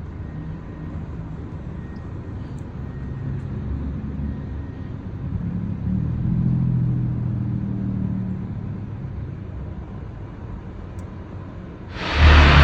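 A low, engine-like rumble swells in the middle and eases off again. About twelve seconds in, a sudden very loud roar across all pitches, heaviest in the deep bass, cuts in: the recurring unexplained loud noise.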